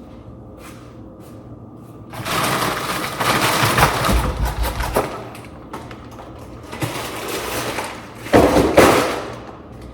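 Household items being moved and handled on a countertop: three spells of rustling, scraping and clattering with a few knocks, the loudest near the end.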